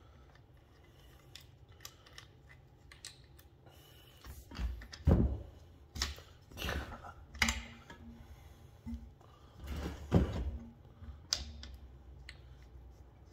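Clicks, knocks and rubbing from a stiff 3/8-inch vacuum-rated refrigerant hose being handled and its brass fittings connected to a reclaim tank valve and a vacuum pump port, with a few louder knocks about five, six and ten seconds in.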